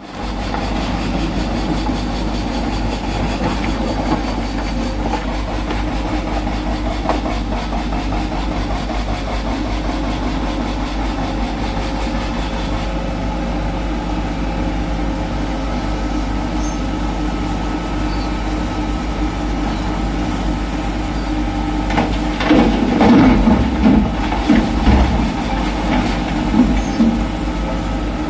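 Hitachi Zaxis 210F excavator's diesel engine running steadily as the machine digs and swings. About three-quarters of the way through comes a spell of louder, irregular clattering and knocks of rock.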